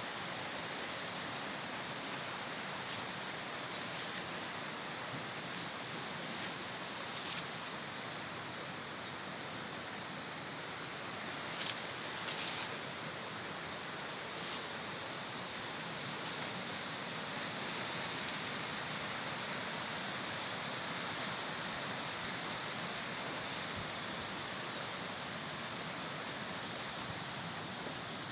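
Steady outdoor ambient hiss, with a couple of short clicks about halfway through and faint, rapid high-pitched chirps in the second half.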